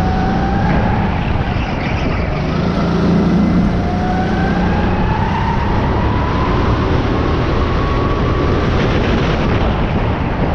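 Rental racing kart's engine running hard, heard from the driver's seat over a constant rush of noise. Its pitch climbs steadily for several seconds in the middle as the kart accelerates along a straight.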